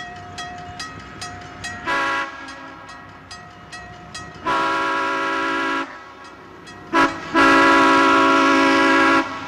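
Passenger diesel locomotive's air horn sounding four blasts of several tones together: a short one, a long one, a very brief one, then a long, loud one. Faint regular clicking, about two or three a second, runs under the first half.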